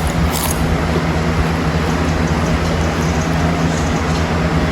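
A steady rushing noise with a constant low hum from a running machine, unchanging throughout.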